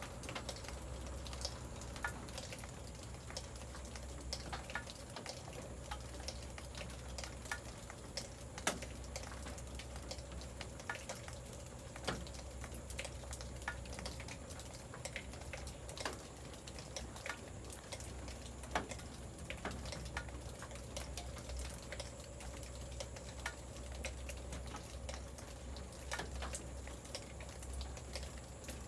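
Rain dripping: irregular sharp ticks and taps of drops landing on surfaces, scattered through, over a steady low hum.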